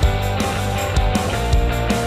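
Background rock music with a steady drum beat and sustained instrumental tones.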